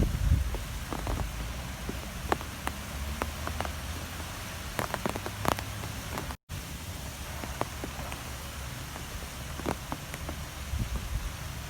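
Strong wind: a steady low rumble and hiss, with scattered sharp ticks and taps throughout. The sound cuts out completely for a moment a little past the middle.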